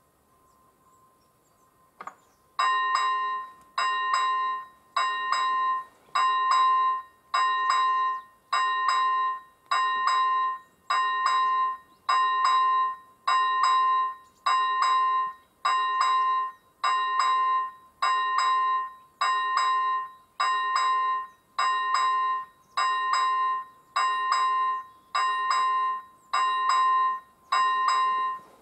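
Railway level-crossing warning bell of an AŽD 97 crossing signal, switching on with a click about two seconds in and then ringing evenly, just under once a second, each stroke sharp and quickly fading. The crossing has activated for an approaching train.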